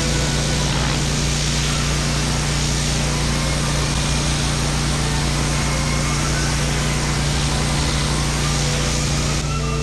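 Gas-engine pressure washer running steadily while the turbo nozzle blasts a water jet onto concrete curbing, a loud hiss of spray over the engine hum. The spray cuts off near the end while the engine keeps running.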